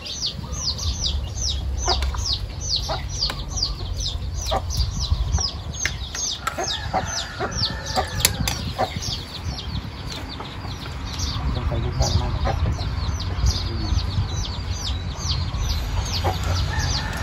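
A bird's high peeping call: an unbroken run of short notes, each sweeping downward, about four a second. Scattered light clicks of spoons on plates sound under it.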